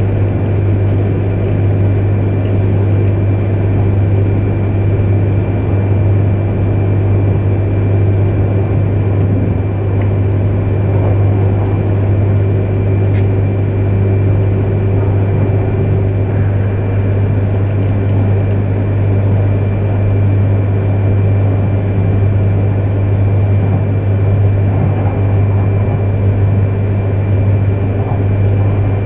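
Steady running noise inside an E3 series Shinkansen car moving at speed: a deep constant hum with a thin steady whine above it, and a mid-pitched tone that drops out about halfway through.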